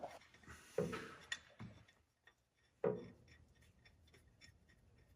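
Metal parts being handled as an alternator brace and its bolt are put in place: a few sharp knocks, then a run of faint, regular ticks, about three a second.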